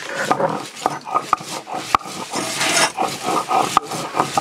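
Garlic cloves being crushed and ground with a stone roller on a stone grinding slab (shil-nora). Rough rasping strokes of stone on stone, with several sharp knocks as the roller strikes the slab.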